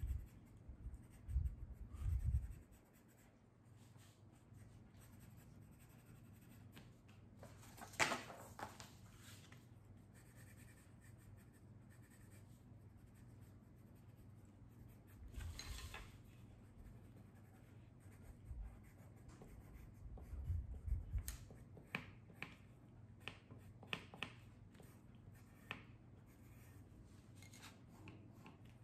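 Faint scratching of coloured pencils on paper. A few soft knocks and rubs come through it, as the paper or pencils are handled.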